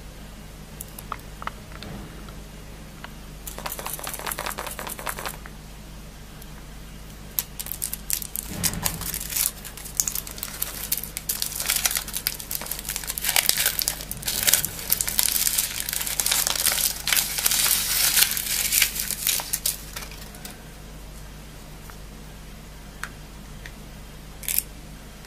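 Foil wrapper of a chocolate surprise egg being crinkled and torn off: a short burst of crinkling, then about twelve seconds of dense crackling and tearing, and a single sharp click near the end.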